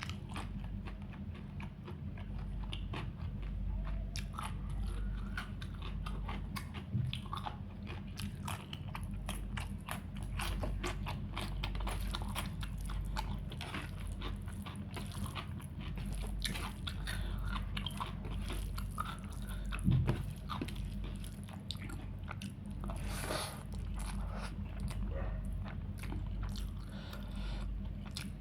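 Close-up eating sounds: a person chewing and biting food, with many small wet clicks and crunches, over a low steady hum. One louder low thump about two-thirds of the way through.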